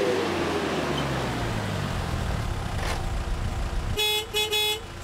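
An SUV's engine running low as it rolls to a stop on a dirt drive, then two short horn beeps near the end.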